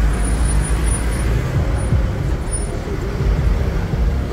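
Street traffic: vans and cars driving past close by, their engines and tyres giving a loud, steady, deep noise.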